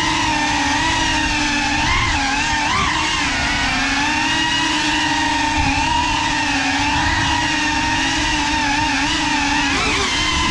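CineLog35 cinewhoop FPV drone's motors and ducted propellers whining steadily, the pitch wavering up and down with the throttle, with quick wobbles about two and three seconds in and again near the end.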